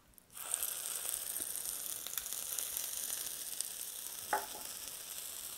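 Chaffle batter of mozzarella and egg sizzling steadily on the hot plate of a Dash mini waffle maker, starting about a third of a second in as it is spooned on, with a brief spatula tap about four seconds in.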